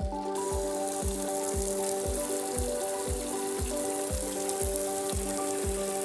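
Background music with held notes and a steady beat about twice a second. A little after the start, the hiss of a jet of water spraying onto asphalt roof shingles comes in and keeps on under the music.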